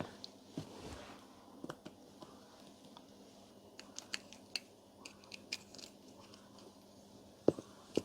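Faint scattered clicks and light rattles of the compressor motor's cable, cable washer and housing being handled and turned over, with a sharper click about seven and a half seconds in.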